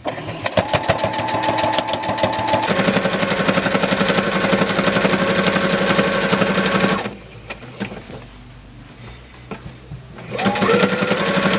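Brother electric sewing machine stitching a straight-stitch hem: it speeds up into steady, rapid stitching, stops about seven seconds in for around three seconds with a few light clicks, then starts again with a rising whine.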